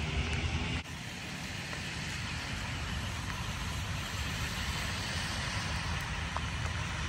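A vehicle engine idling under a steady hiss of outdoor noise. About a second in, the sound drops abruptly at an edit and continues as a steadier hiss with a low rumble.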